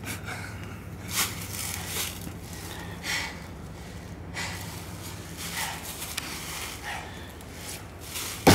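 Axe blows into a dead tree trunk, about one a second, with the hardest blow right at the end, and breathing between the strokes.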